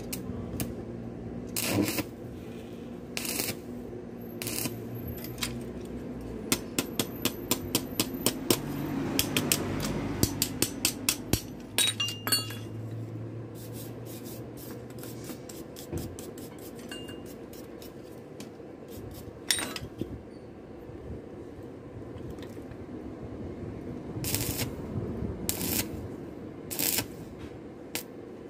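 Metal clinking and tapping as a small steel part is worked by hand at a vise and anvil: scattered single strikes, with a quick run of light taps, about two or three a second, from about six to eleven seconds in. A steady low hum runs underneath.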